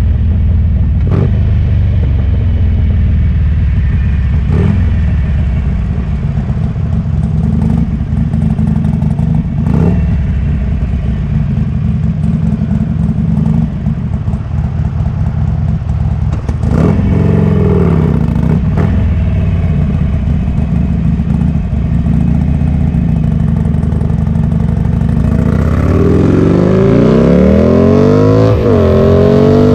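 Harley-Davidson Sportster Roadster's air-cooled V-twin, bored out to 1275cc with a Hammer Performance kit and running through a Cobra exhaust, loping at low revs for most of the time, then revving hard near the end with a gear change and pulling up again.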